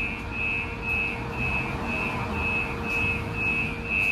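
Siemens LRV4 light-rail car's door warning beeper sounding a steady high beep about twice a second while the car stands at a stop, over the car's steady electrical hum.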